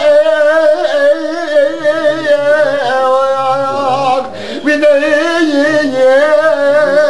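A man singing solo and unaccompanied in long, wavering held notes, with a brief pause about four seconds in.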